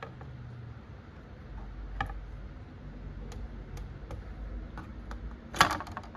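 Panasonic SL-790 automatic record changer's mechanism cycling: a low motor hum under scattered mechanical clicks, with a louder clatter about five and a half seconds in.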